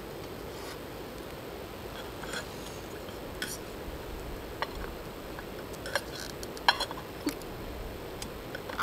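Metal clinks and taps of a lid being handled and fitted onto a full aluminium camping pot on a gas stove, the sharpest clink a little before the end, over a steady low hiss.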